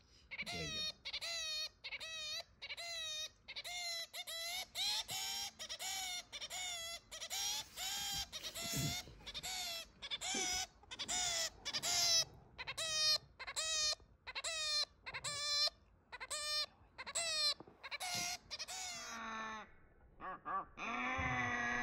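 Zebra finch calling over and over: a string of short calls, about two a second, with a longer call near the end.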